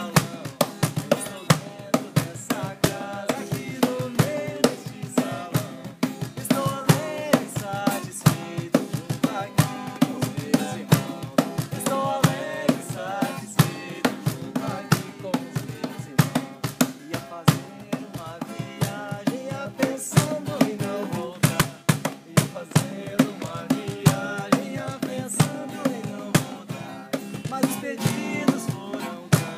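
Umbanda chant for the Pretos Velhos, a melody sung over a steady drum beat.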